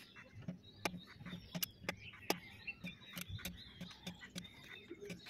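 Faint, scattered metallic clicks and light taps at irregular intervals from hand work on an excavator track gearbox being dismantled, with birds chirping faintly in the background.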